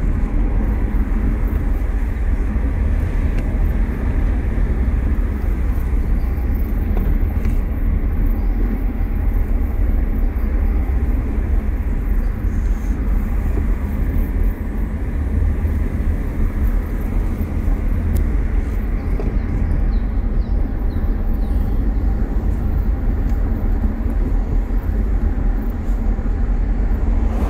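Steady low rumble of road and engine noise inside the cabin of a moving Nissan X-Trail.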